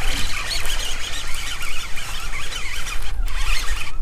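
Baitcasting reel being cranked as a hooked bass is reeled in, a continuous whirring that breaks off briefly about three seconds in, over a low rumble.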